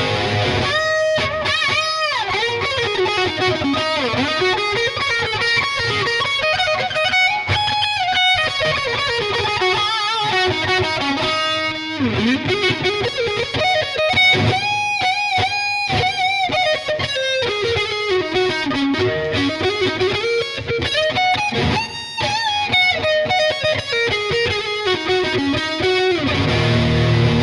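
Ibanez GRG121SP electric guitar with two humbucking pickups, played through a distorted tone: fast single-note lead runs, the notes climbing and falling in quick arpeggio sweeps over and over.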